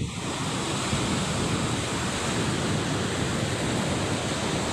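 Surf breaking on a sandy beach: a steady wash of noise, with some wind on the microphone.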